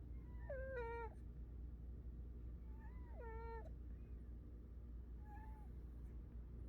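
A pet snoring with a squeaky, whistling note: a short, wavering high squeak on each breath, about every two and a half seconds, three times, the last one faint.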